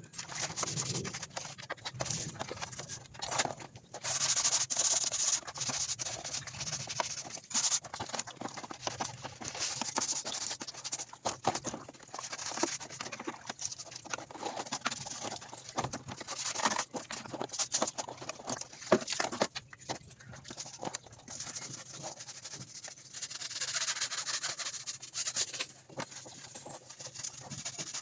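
Hands washing a plastic panel in a basin of soapy water: irregular splashing and sloshing with scattered knocks and clatters of plastic against the basin.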